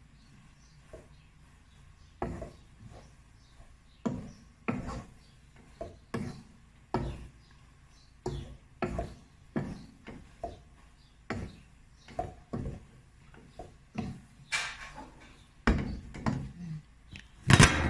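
Wooden spoon stirring noodles in a stone-coated cooking pot, knocking and scraping against the pot's side and rim in irregular strokes about once a second, with a louder knock near the end.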